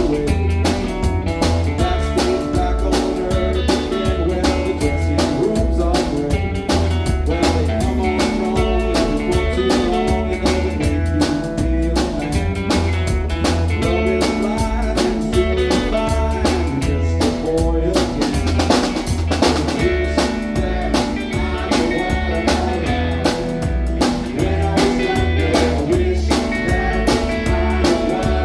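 A band playing a blues-style song with drum kit and guitar, the drums keeping a steady beat under a pulsing bass line.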